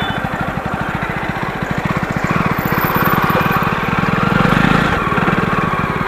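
Jawa motorcycle engine running on the move, a rapid steady beat of firing pulses that grows louder around four to five seconds in and then eases back. It is running smoothly on its new battery.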